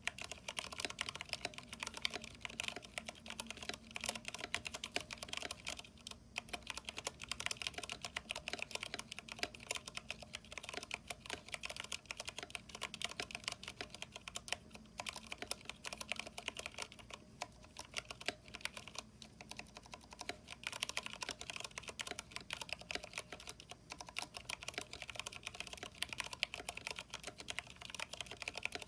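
Steady, fast typing on a Vortex 10th Anniversary Edition mechanical keyboard with Cherry MX Brown switches, NP PBT keycaps and lubed stabilizers: a dense run of key clicks and clacks with a few brief pauses.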